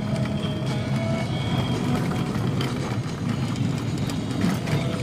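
Vehicle driving on a rough off-road track: a steady engine and road rumble with scattered brief knocks.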